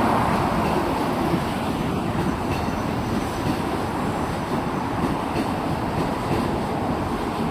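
Keikyu Line train running past, a steady rumble of wheels on the rails, a little louder at the start.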